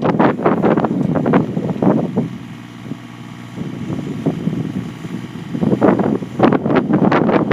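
Gusts of wind buffeting the microphone over a 3-ton mini excavator's engine running as it digs a swale. The wind drops in a lull about two to three and a half seconds in, where the engine's steady note comes through more plainly.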